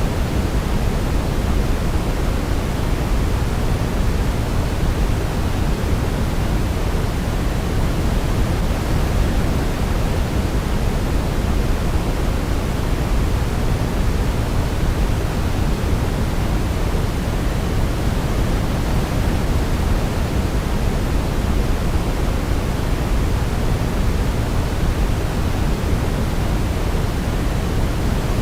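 Steady white noise for baby sleep: an even, unbroken hiss weighted toward the low end, so it sounds deep rather than bright. No melody can be heard over it.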